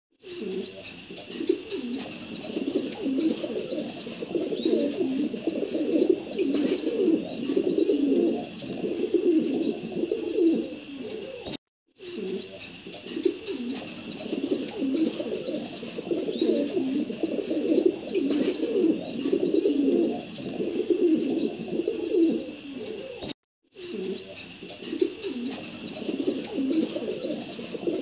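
Pigeons cooing continuously, a dense low pulsing coo, with faint high chirping over it. The sound cuts out completely for a moment twice, about twelve and twenty-three seconds in.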